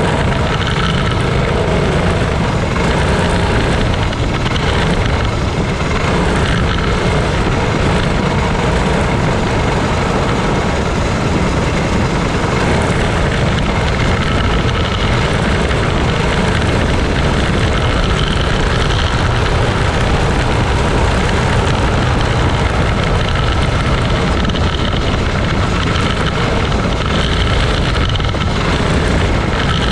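Racing go-kart's small engine running hard around an oval, heard close from the kart itself, mixed with steady wind and vibration noise on the camera.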